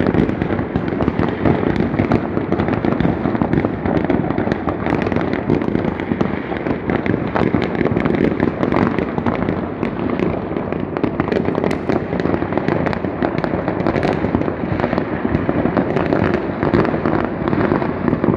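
Private fireworks rockets going off all over a town at once, many at a distance: a dense, unbroken mass of bangs and crackles with no pause.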